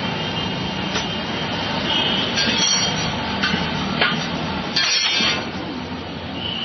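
Steady road traffic noise with a metallic clink about four seconds in. Several short high-pitched hissing bursts come between about two and five and a half seconds.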